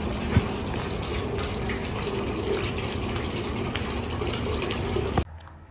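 Steady rushing of water that cuts off abruptly a little after five seconds in.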